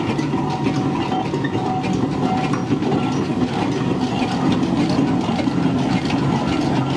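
Steam traction engine driving past, with a steady rapid clatter from its gearing and motion.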